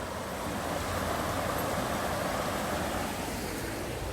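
A steady rushing noise with no tones or knocks, swelling slightly in the middle and easing again.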